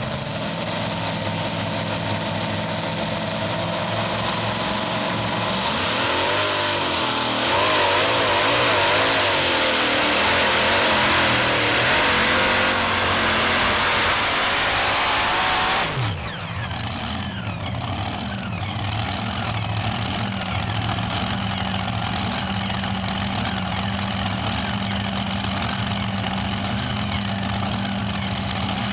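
Supercharged engines of a multi-engine modified pulling tractor running at low revs, then revving up about six seconds in to a loud full-throttle pull under the sled's load. Around sixteen seconds in the throttle is cut suddenly and the pitch falls as the pull ends, and the engines settle to a steady idle.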